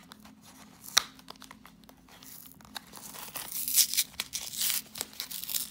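Plastic blister packaging of a Pokémon card pack being handled, with a sharp click about a second in, then the booster pack's foil wrapper being torn open, crackling from about three seconds in.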